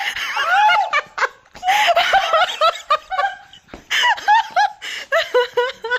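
A young woman laughing hard in high-pitched bouts, three bursts with short breaks between them.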